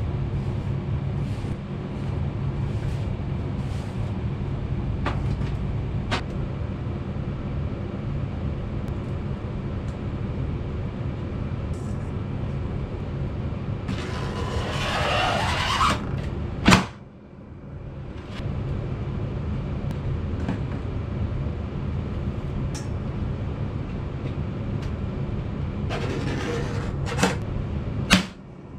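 A blade scoring a clear plastic sheet along a steel ruler, heard as a scraping rasp twice, each ending in a sharp click, over a steady low rumble with scattered small clicks.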